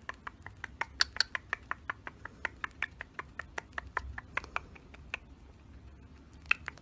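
Cockatiel's beak clicking and nibbling on a person's lips: a quick run of small, crisp clicks, about six a second. They stop about five seconds in, then two more clicks come near the end.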